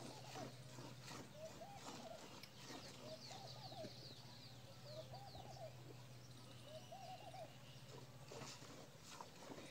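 Faint hand-milking of a cow, milk squirting into a steel bucket in soft strokes, under a bird's short wavering call repeated about every one and a half seconds. Quick high falling chirps come in the first half, over a steady low hum.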